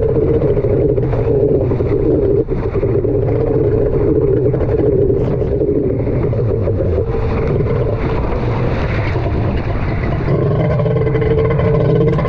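Kawasaki 1100 two-stroke triple of a stand-up jet ski running steadily under way, with water spray and wind on the microphone. The engine is not running right.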